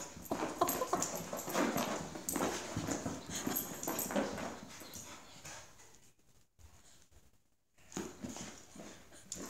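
Kerry Blue Terrier making playful dog noises in short, irregular bursts while playing with a deflated balloon, going quiet for about two seconds a little past the middle before starting up again.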